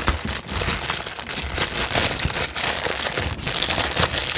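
A clear plastic bag crinkling and crackling as hands unwrap a car adapter plug from it: a busy, continuous rustle of small crackles.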